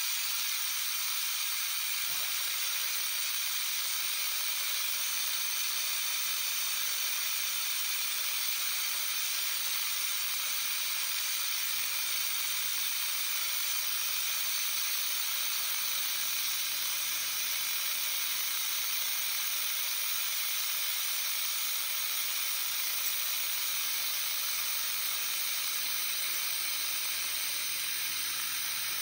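Milling machine rough-cutting a pocket in a metal plate with an end mill under a coolant spray from a nozzle: a steady hiss. A faint low hum joins about twelve seconds in.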